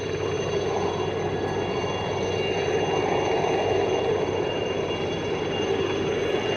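Aérospatiale Alouette III helicopter flying low and slow nearby. Its turbine gives a steady high whine over the rush of the rotor, growing slightly louder.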